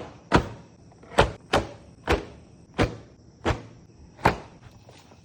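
A series of sharp knocks, seven in all, spaced irregularly over about four seconds, each with a short ringing tail.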